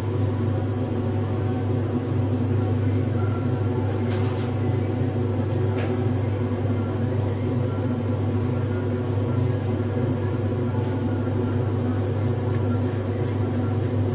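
Steady machine hum at an even level, with two or three faint clicks about four and six seconds in.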